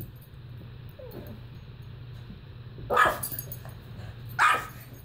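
Small dogs at play: one gives two short, sharp barks, about a second and a half apart, in the second half.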